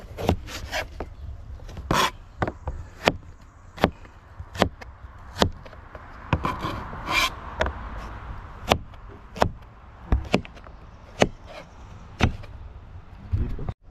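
Chef's knife chopping carrots on a plastic cutting board: sharp knocks of the blade hitting the board, irregular, about one or two a second.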